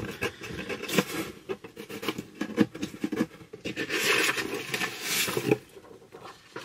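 Rummaging in a box: paper and packaging rustling and scraping, with scattered small clicks and taps. The rustle is loudest from about four seconds in to about five and a half.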